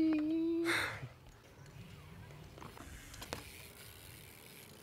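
A man's drawn-out shout holds one pitch and stops about two-thirds of a second in, followed by a short breathy exhale. After that there is only faint outdoor background with a couple of light clicks.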